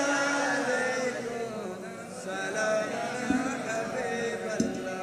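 A man chanting a devotional Urdu naat in a slow melody, holding long, wavering notes between the words of the refrain.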